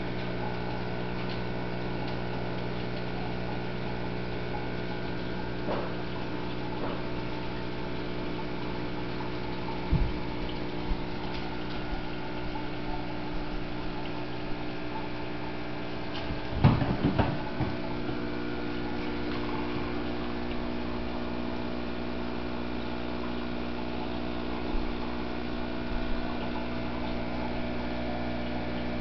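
Aquarium equipment running: a steady motor hum from the sump's pump with running, bubbling water, broken by a few brief knocks, the loudest cluster near the middle.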